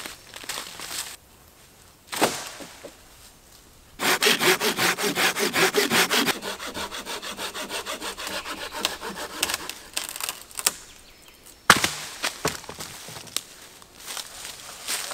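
Hand pruning saw cutting through a green wooden pole in rapid back-and-forth strokes, about five a second. The strokes are loud at first and grow softer as the cut goes on. A single sharp crack of wood comes about three-quarters of the way through.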